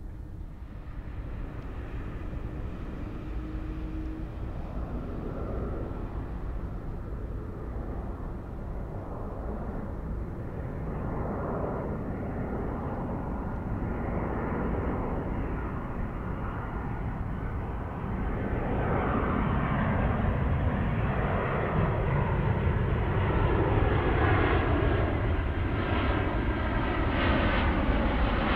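Boeing 737-800 airliner on approach with its landing gear down, its CFM56 turbofan engines growing steadily louder as it closes in low overhead, with a clear jump in loudness about two-thirds of the way in. The engine whine sweeps in pitch over a steady low rumble.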